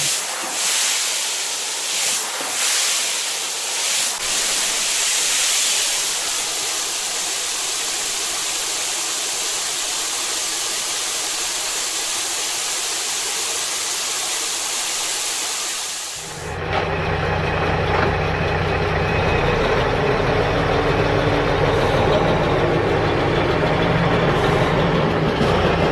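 A steady hiss for about the first sixteen seconds, then a truck engine sound comes in suddenly and runs on as a steady low hum while the model truck drives.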